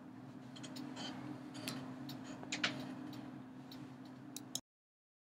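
Faint room noise with a steady low hum and a scattered handful of small, sharp clicks. The sound cuts off abruptly to dead silence about four and a half seconds in.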